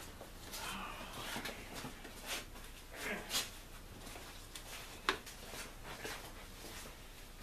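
Light clicks, scrapes and rubbing of metal parts being handled as a piston held in a ring compressor is set into the oiled cylinder bore of a Jeep 2.5L four-cylinder engine, with one sharper click about five seconds in.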